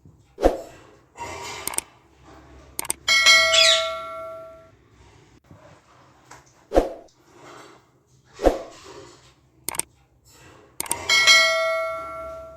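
Metallic ringing struck twice, each ring dying away over about a second and a half, with a few sharp knocks between. A pet parakeet gives a short falling squawk about three and a half seconds in.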